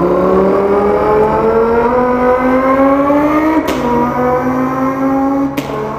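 A person imitating an Audi R8's engine with his voice: a revving tone that climbs steadily, drops sharply just under four seconds in like a gear change, then climbs again before breaking off near the end.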